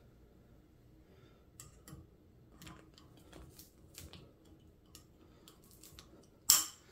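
Faint metallic ticks and clicks of small steel parts being handled and fitted at the end of an Olympic bearing barbell's sleeve, with one sharp metal click near the end.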